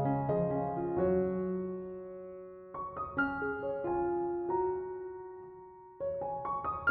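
Soft background piano music: gentle groups of notes struck and left to ring and fade, a new phrase starting about three seconds in and another about six seconds in.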